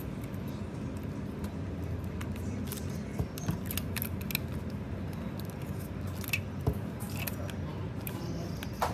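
Rubber bands being stretched and snapped around an iPhone 11's glass back to clamp the newly fitted back glass, giving a scatter of sharp clicks and snaps. A steady low hum runs underneath.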